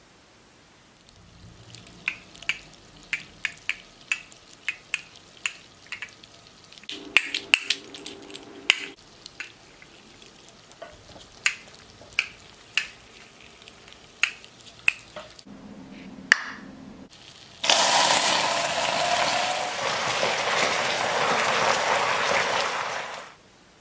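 Hot caramel in a saucepan sizzling and spitting loudly for about five seconds as boiling water is added, cutting off suddenly, after a run of sharp, irregular clicks.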